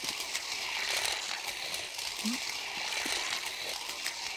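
Electric slot car running round its track: a steady whirring hiss with rapid rattling clicks.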